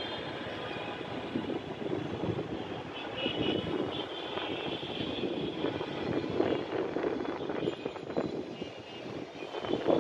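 Distant city traffic noise: a steady rumbling hum that swells and fades, louder near the end.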